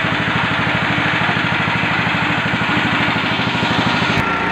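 Portable mini rice mill running steadily with a fast, even pulse and a rushing hiss as grain passes through it; the sound breaks off abruptly near the end.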